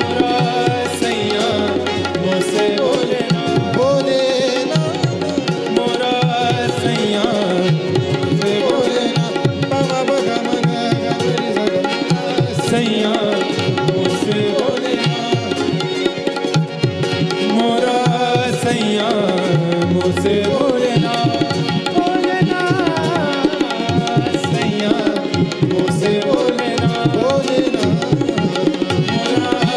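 Live Indian light-classical ensemble music: tabla played throughout under harmonium and keyboard, with a melody line gliding up and down over them.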